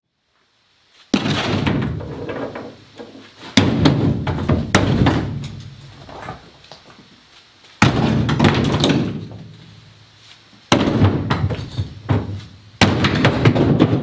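Chunks of broken concrete thrown one by one into a pickup truck bed: about six heavy thuds, one every two seconds or so, each dying away over a second or two.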